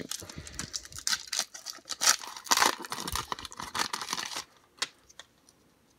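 A wrapper on a pack of baseball cards is torn open, crinkling and tearing in a busy run of crackles for about four seconds. It then thins to a few faint clicks near the end.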